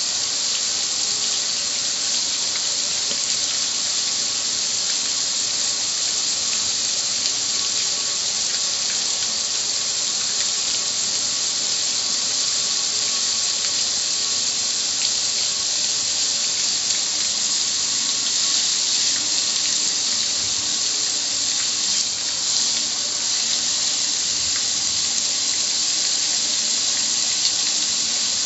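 Water from a garden hose spray nozzle jetting steadily onto a gas grill's lid and control panel and splashing off it: a constant high hiss of spray.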